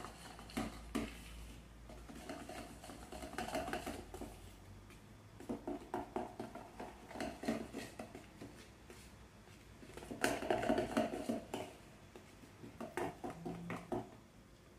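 Hand wire whisk scraping and clicking against a plastic mixing bowl in several bursts of quick strokes, working flour into a cake batter.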